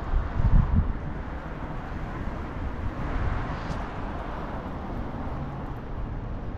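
Road traffic on a multi-lane street, with the noise of a car going by swelling about three seconds in and then easing off. Wind buffets the microphone in the first second.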